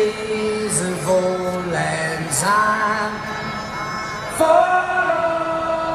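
A crowd of people singing together in long, held notes, a loud new note starting about four and a half seconds in.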